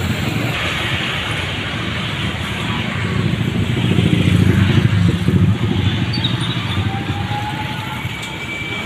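Motorcycle and road traffic running past, over a steady noisy hiss. The traffic swells loudest about four to five seconds in, then eases off.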